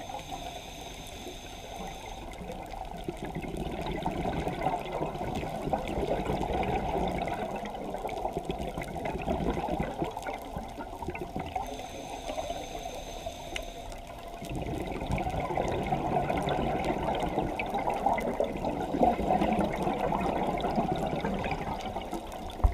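Scuba diver breathing through a regulator underwater: a short hissing inhalation near the start and another about twelve seconds in, each followed by several seconds of bubbling exhaust.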